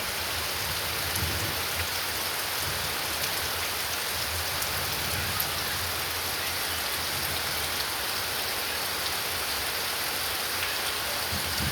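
Steady rain falling: an even hiss flecked with tiny drop ticks, over a low, uneven rumble.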